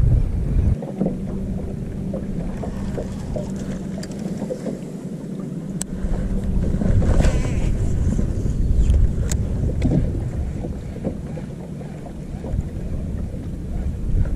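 Small fishing boat moving on the reservoir, wind rumbling on the microphone. A steady low hum runs through the first half, and there are a few sharp knocks.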